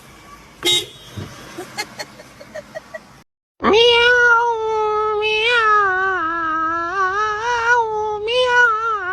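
A cat's single long, drawn-out yowl lasting about six seconds, wavering and slowly falling in pitch. Before it there are a few faint clicks.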